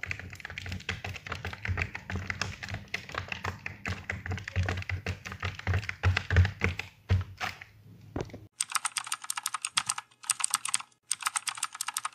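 Rapid, irregular clicking and tapping. From about eight and a half seconds in it changes to short bursts of thinner, higher clicking with brief gaps between them.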